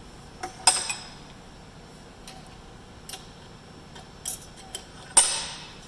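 Metal clicks and clinks from a brake-line double-flaring tool being snugged down on a steel line: several light irregular ticks and two sharper metallic clanks that ring briefly, about a second in and near the end.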